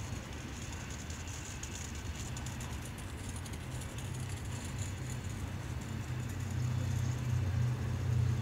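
TEP70 diesel locomotive's engine running with a deep, steady hum that grows louder over the last couple of seconds as the locomotive pulls away.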